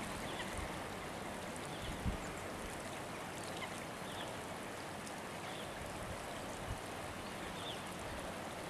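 Shallow river running over a stony bed: a steady rushing of water, with a few short high chirps scattered through it.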